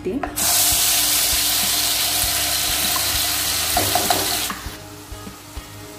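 Wet ground coconut, coriander, garlic and ginger paste hitting hot oil in a pan and sizzling loudly. The sizzle starts about half a second in and drops off sharply about four and a half seconds in.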